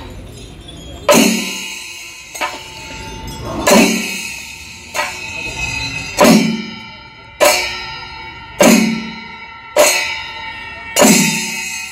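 Metal bells clanging in a slow, even rhythm, about one strike every second and a quarter, each ringing on after it, with heavier and lighter strikes taking turns.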